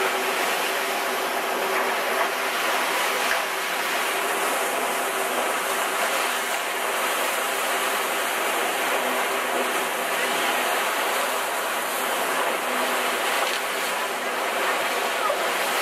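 Steady rush and splash of sea water along the hull of a moving catamaran, a continuous even noise.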